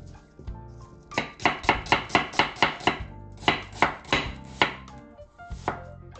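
Kitchen knife chopping onion on a wooden cutting board: quick runs of sharp strikes at about five a second, one run of about nine strikes and then, after a short pause, another of about six, with a single strike near the end.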